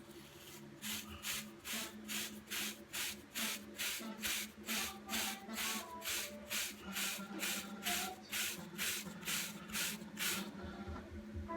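A wave brush swept repeatedly over short hair to train 360 waves, in quick, even strokes of about two and a half a second. The strokes start just under a second in and stop about a second before the end.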